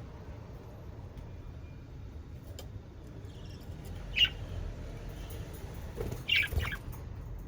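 Budgerigars giving a few short high chirps, one about four seconds in and a quick cluster about six seconds in, over a steady low background rumble.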